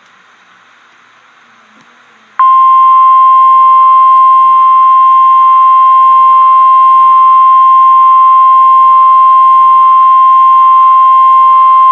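NOAA Weather Radio warning alarm tone: a loud, single-pitched steady beep that starts suddenly about two and a half seconds in, after faint radio hiss, and holds without a break. It is the alert signal that precedes a weather warning broadcast.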